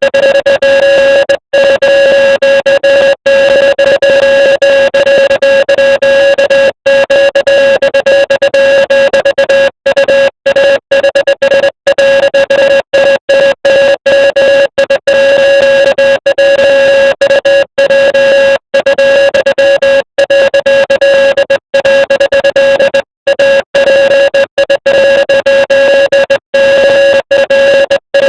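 Loud electronic Morse code tone, a steady pitch sounding almost throughout and broken by many brief gaps at uneven spacing as it is keyed.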